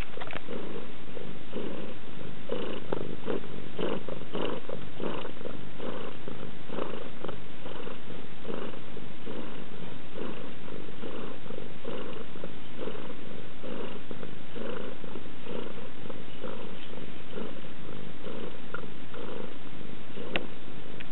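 Domestic cat purring steadily, the purr pulsing in a regular rhythm as it breathes in and out. A single faint click sounds near the end.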